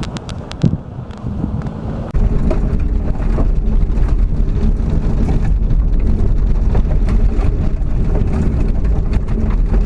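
A vehicle engine running steadily and loud, close to the microphone, cutting in suddenly about two seconds in; before it, a few light clicks over quieter wind and rumble.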